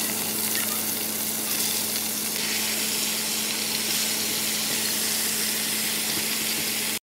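Chunks of beef chuck roast searing in hot oil in an enamelled Dutch oven: a loud, steady sizzle that grows brighter about two and a half seconds in. A faint low hum runs underneath, and the sound stops abruptly near the end.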